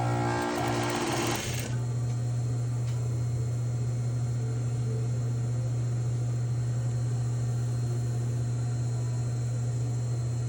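Sewing machine running steadily at an even speed without stopping. A brief, higher, noisier sound lies over it for about the first second and a half.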